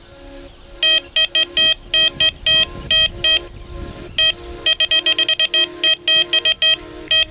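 Electronic carp bite alarm sounding in irregular, rapid strings of high-pitched beeps, starting about a second in: a carp has taken the bait and is pulling line off the reel.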